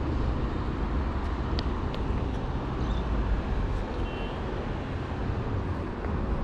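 Steady rushing of a fast-flowing stream, an even noise strongest at the low end.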